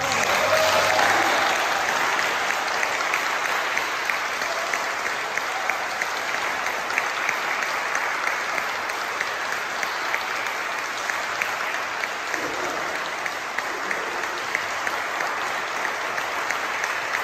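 Audience applauding steadily, with individual sharp claps standing out, swelling in the first couple of seconds and then easing slightly.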